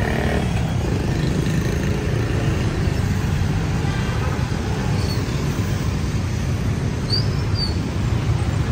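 Steady street traffic, mostly motorbikes with some cars passing through an intersection, a constant low rumble of engines and tyres. Two brief high chirps sound about seven seconds in.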